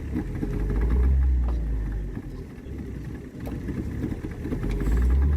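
Boat motor running steadily at trolling speed, with a low rumble that swells twice, about a second in and near the end.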